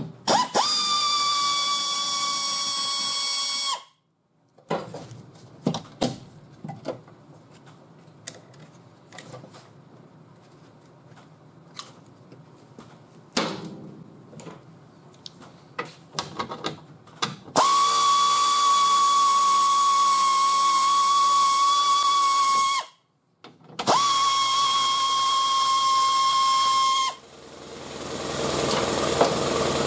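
Pneumatic stubby air ratchet spinning fasteners out of the speaker and bracket on a car door. It runs three times with a steady high whine that spins up at each start: once briefly at the start, then two longer runs later on. Between the runs come light clinks of tools and parts, and there is a rushing hiss of air near the end.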